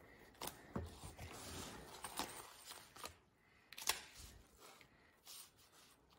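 Faint handling noise: stationery and its plastic packaging being moved about by hand, with light rustling and a few soft taps, the sharpest about four seconds in.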